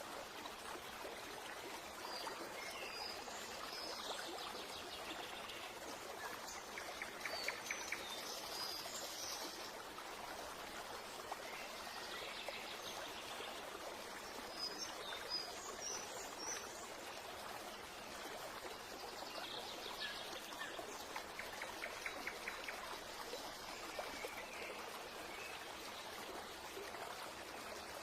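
Steady flowing water like a stream, with scattered high bird chirps and a few short rapid trills over it.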